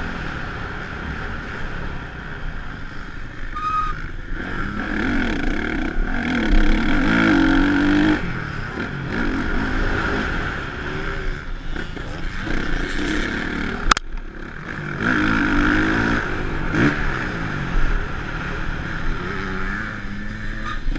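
Honda motocross bike engine revving up and falling back again and again as it is ridden around a dirt track, heard from a camera on the rider with wind noise. One sharp knock about two-thirds of the way through.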